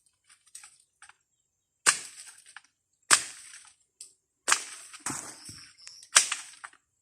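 Sharp snaps and cracks from lemons being picked off a tree, with stems and twigs breaking. There are four loud cracks spaced about a second to a second and a half apart, with fainter clicks between them.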